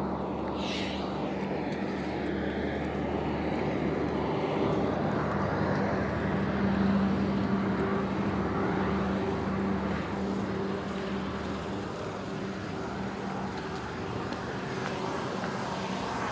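Steady engine hum with road traffic noise.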